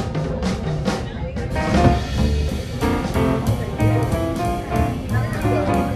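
Music with a drum kit keeping a steady beat under pitched instrument notes.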